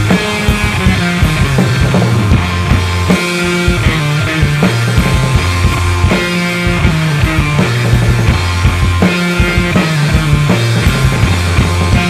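Instrumental rock played live on drum kit and electric guitar: sustained low guitar notes that shift every second or so over steady drumming with cymbals.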